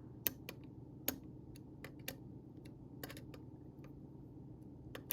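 Scattered light clicks and taps, about eight at irregular intervals, from a folding knife and a small Torx driver being handled as a T8 bit is tried in the handle screws.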